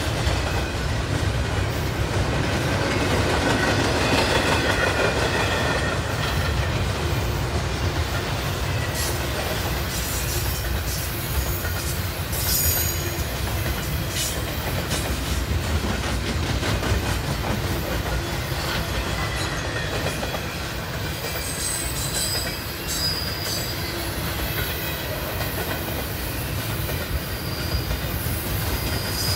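Double-stack intermodal container cars of a BNSF freight train rolling past: a steady rumble of steel wheels on rail, with scattered clicks and faint high wheel squeals at times.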